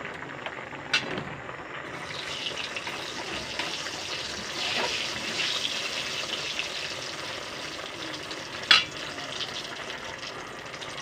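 Nigella seeds and dried red chillies sizzling and crackling in hot oil in a metal kadhai: a tadka being tempered. The sizzle picks up about two seconds in. There is a sharp knock about a second in and a louder one near the end.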